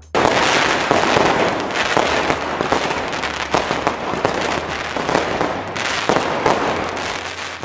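Fireworks going off: a dense, continuous crackle of many small bangs that starts abruptly and then runs on.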